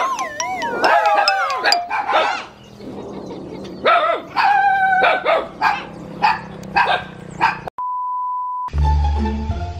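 Dog barking in a string of short barks, with some high, wavering yelps in the first two seconds. About eight seconds in, a steady test-tone beep sounds for about a second, then music starts.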